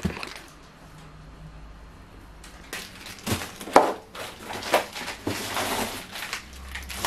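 Packs of frozen cat food being handled and packed away: plastic packaging crinkling, with irregular light knocks and clatter starting about two and a half seconds in.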